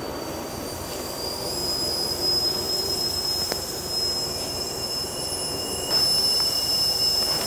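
Hydraulic two-post car lift lowering a car: a steady high-pitched whine from the fluid release, rising slightly at first, with a second, lower tone joining a couple of seconds in and a few faint clicks.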